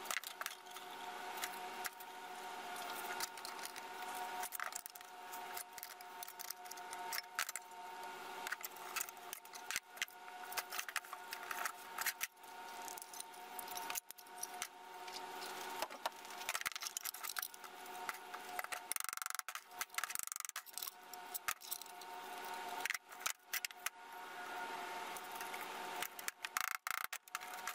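Thin perforated metal sheets and copper sheeting being handled and laid against a wooden box on a workbench: light metallic clinks and rattles, irregular throughout, over a steady faint hum.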